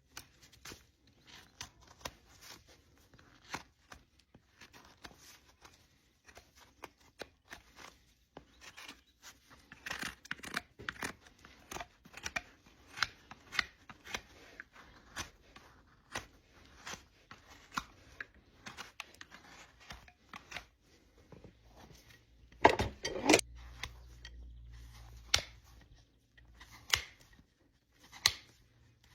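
Hoof trimming tools cutting and paring an overgrown draft horse hoof: a long, irregular run of short cutting strokes. A louder knock comes about three-quarters of the way through.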